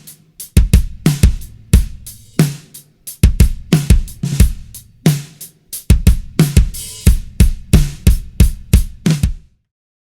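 Acoustic drum kit played in a groove: bass drum thumps from the pedal beater under snare and hi-hat or cymbal hits. The playing stops abruptly near the end.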